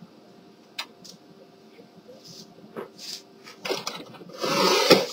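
A screwdriver finishing a screw in the printer's plastic side panel: a few separate faint clicks. Then handling noise, with clicks and scraping on plastic and a louder rustle near the end.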